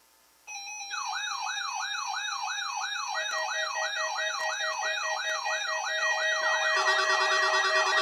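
Electronic warbling siren-like tone, rising and falling about twice a second over a steady tone. It starts about half a second in, and more steady synthesized tones are layered in about three seconds and about seven seconds in as it grows louder.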